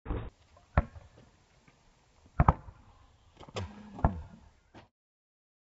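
A basketball's sharp knocks, about five spread over a few seconds: dribbling bounces on the asphalt and a dunk on the hoop. The sound cuts off suddenly about five seconds in.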